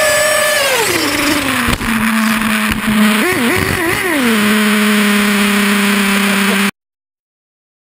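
Radio-controlled snowmobile's motor whining. It drops in pitch about a second in and holds steady, rises and falls twice around three to four seconds in, then cuts off suddenly near the end.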